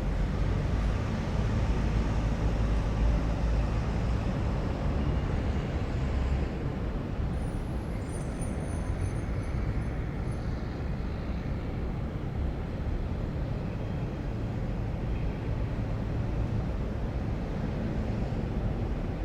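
City ambience: a steady low rumble of road traffic, a little heavier in the first few seconds, with a brief faint high-pitched sound about eight seconds in.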